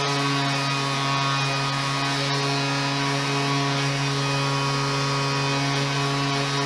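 Dual-action sander running steadily with an even hum, grinding curb-rash scratches off the face of an alloy wheel rim with 120-grit paper.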